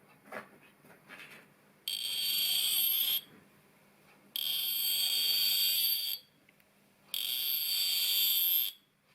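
A cutting tool squealing in brass: three loud, high-pitched squeals of about a second and a half each, with short quiet gaps between them as the tool bites and backs off. Soft clicks of machine handling come before the first squeal.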